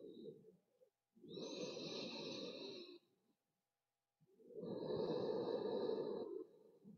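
A woman's slow, deep breathing: two long breaths of about two seconds each, a second or so apart, the second louder.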